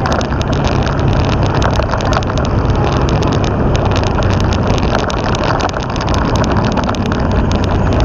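Motorcycle running steadily on the road, engine hum mixed with a dense clicking rattle and wind on the microphone. The final-drive gear case sounds rough, which the owner puts down to gear oil left unchanged too long.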